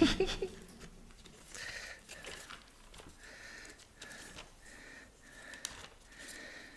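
A quiet pause with faint, scattered handling noises close to a lectern microphone. A thump dies away right at the start.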